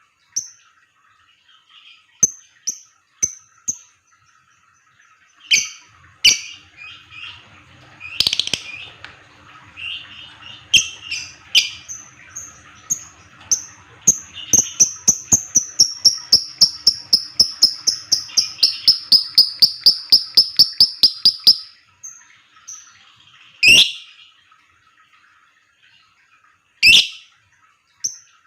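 Lovebirds calling with sharp, high chirps and shrieks. In the middle comes a long, rapid run of evenly spaced chirps, about four a second for some seven seconds: the typing-like 'ngetik' chatter. Two loud single shrieks follow near the end.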